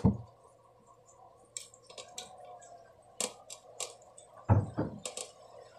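Stainless steel grater rasping through a block of hardened coffee-flavoured gulaman (agar jelly): a few short, soft, irregular scraping strokes. There is a sharp knock at the start and a duller thump near the end.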